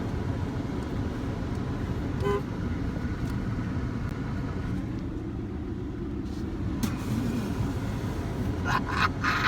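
Car driving with a steady road and engine rumble from inside the cabin, a short car-horn toot about two seconds in, and a few more brief toots near the end.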